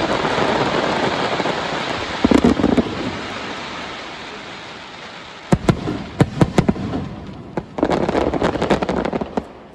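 Aerial fireworks: a sudden burst of dense crackling that slowly fades. About halfway through comes a quick run of sharp bangs, and near the end another crackling burst.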